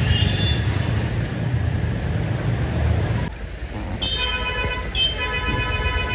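Low rumble of road traffic, then a vehicle horn honking twice near the end, two steady blasts with a brief gap between them.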